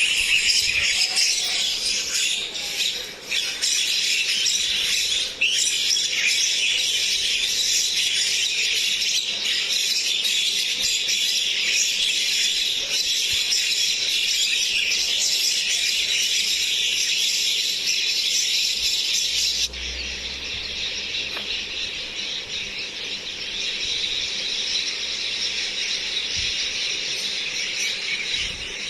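Myna calling: shrill squeals and chatter over a dense, continuous high-pitched chorus. About twenty seconds in, the sound turns abruptly quieter and less bright.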